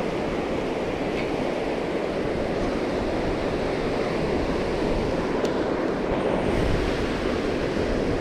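Steady rush of fast-flowing aqueduct water, with wind buffeting the microphone.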